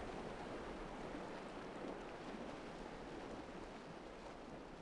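Faint, steady rush of a river's flowing water, fading out gradually.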